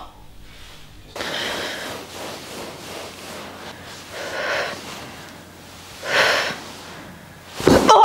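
A person's breathy exhales, three of them a couple of seconds apart, during a towel-assisted neck stretch. A brief, louder thump comes just before the end.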